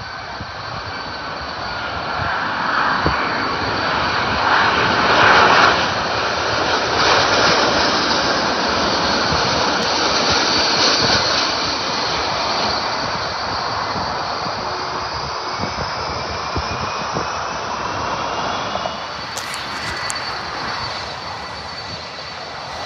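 Airbus A350 on final approach passing low overhead: its Rolls-Royce Trent XWB engines make a jet roar with a steady high whine, building to loudest about five seconds in and then slowly fading. Near the end a more distant jet takes over.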